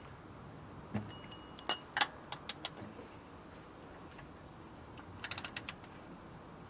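Hand tools being handled during a car oil change: scattered metallic clicks and clinks, then a quick run of about six clicks a little past halfway.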